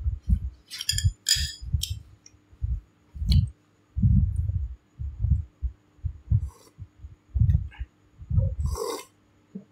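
A person slurping water spinach soup from a bowl: short hissy slurps about a second in and a louder one near the end, over a steady run of soft low thumps.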